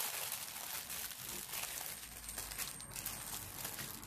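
Clear plastic bag crinkling in the hands as small sealed packets of diamond-painting drills are pulled out of it, a continuous run of crackles.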